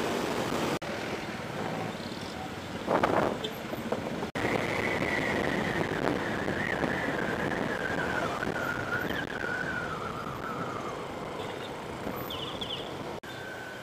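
Steady wind and road noise from a Honda Click 125i scooter riding through city traffic. A brief loud noise comes about three seconds in, and a high whine slowly falls in pitch through the middle. The sound drops out for an instant three times.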